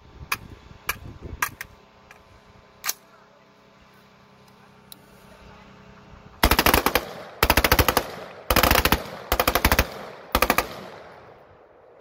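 A few sharp metallic clicks as the soldier handles his military rifle, then five short bursts of rapid automatic rifle fire starting about six and a half seconds in, each about half a second long, with echo trailing after each.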